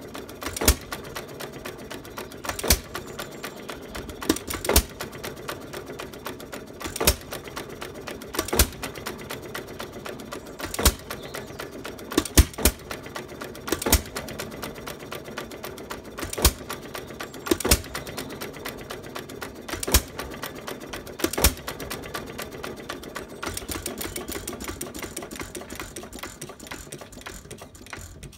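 1912 Fuller and Johnson vertical hit-and-miss farm pump engine running. It gives a sharp bang each time it fires, every one and a half to two and a half seconds, with the fast clatter of its valve gear and flywheels coasting between shots. There are no bangs in the last five seconds or so, only the clatter, which cuts off suddenly at the very end.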